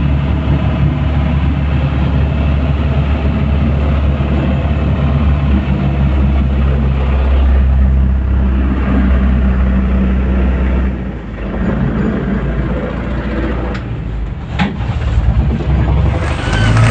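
An enclosed lifeboat's inboard diesel engine running, heard from inside the hull as a steady, loud low drone. About eleven seconds in the drone drops away and changes, and a couple of sharp knocks follow.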